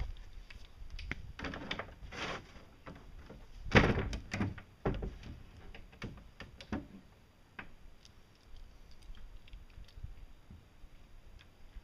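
Hand tools knocking and clattering on a wooden board, with a loud cluster of knocks about four seconds in and lighter scattered ticks after.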